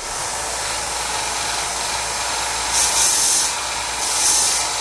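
Bench belt sander running steadily while a piece of steel round stock is ground on it to take off rough edges. The steel is pressed to the belt twice, about three seconds in and again near the end, each time adding a louder, harsher, higher grinding.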